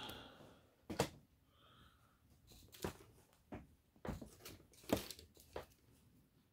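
Scattered light knocks and clicks of plastic toys and figures being handled and shifted on a tabletop, about six separate taps.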